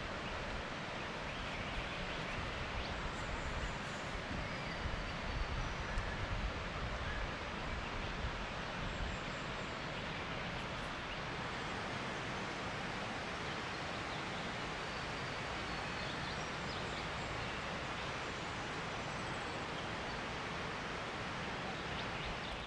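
Steady outdoor ambience: an even rushing noise with a low rumble, and a few faint, high bird chirps in the first half.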